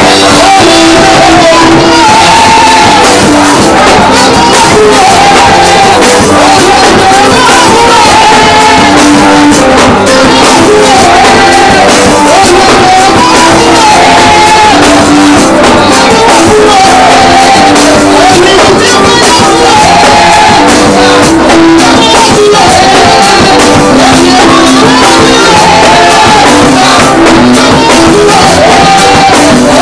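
Loud live gospel praise music: singers on microphones over a band with tambourine, with shouts from the congregation mixed in.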